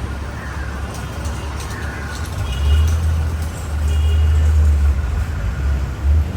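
A car engine running close by, its low hum getting louder about two and a half seconds in.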